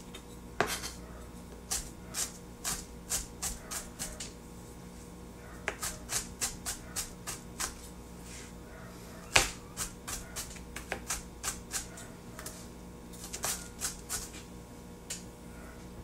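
Knife chopping onions and green peppers: runs of sharp taps, about two or three a second, broken by short pauses, with one harder knock about nine seconds in.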